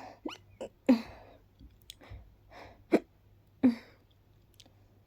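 A woman with a pollen allergy hiccuping and sneezing: several short, sharp bursts over a few seconds, the loudest about a second in and near three seconds in, with smaller catches and breaths between.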